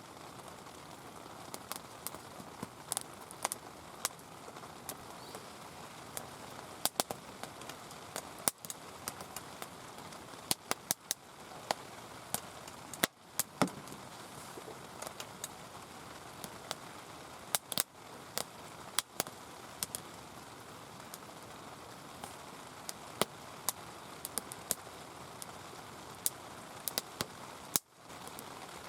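Heavy rain falling steadily, with frequent sharp, irregular crackles and ticks over it.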